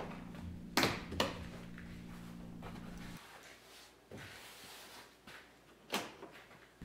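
Hands pressing a plastic truck door trim panel against the door to seat its clips, giving a few sharp knocks: two close together about a second in and one more near the end.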